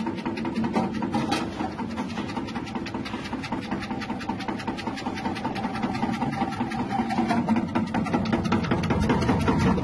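Electric chip-slicing machine running, its 180-watt motor spinning the blade disc with a steady hum and rapid fine ticking as produce is fed through the tubes and sliced.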